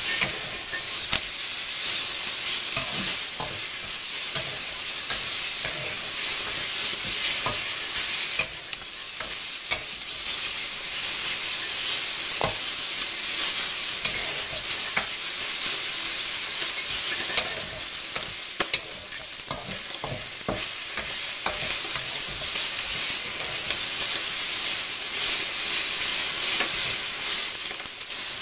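Pork pieces sizzling as they are stir-fried over high heat in a pan: a steady frying hiss with frequent clicks and scrapes of the spatula against the pan.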